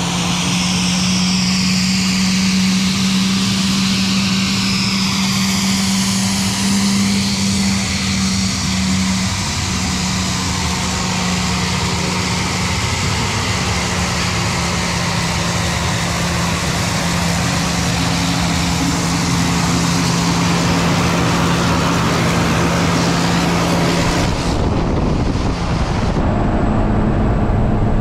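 Single-engine turboprop of a Cessna Caravan jump plane running on the ground, a steady low hum over a dense hiss. About 25 seconds in it gives way to the duller, steady engine drone heard inside the cabin in flight.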